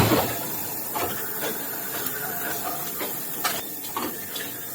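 Metalworking machinery running on a factory floor: a steady mechanical clatter and hiss, with a sharp knock at the start and scattered clanks and clicks after it.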